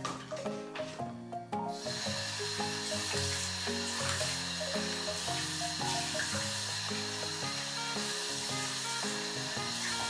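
Light background music of short pitched notes, with a steady sizzling hiss laid over it from about two seconds in.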